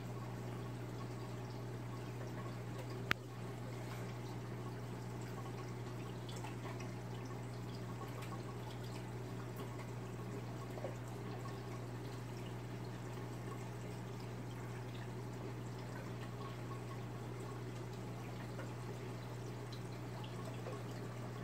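Aquarium filter running: water steadily trickling and dripping back into the tank over a constant low motor hum. A single sharp click about three seconds in.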